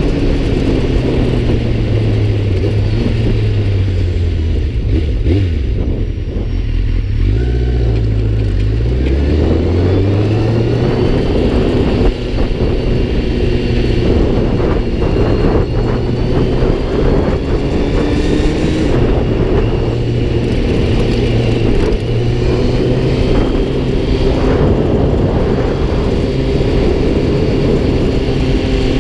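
Kawasaki Z1000 motorcycle's inline-four engine under way: its pitch falls for several seconds as the bike slows, rises again as it accelerates, then holds steady at cruising speed with small rises and dips.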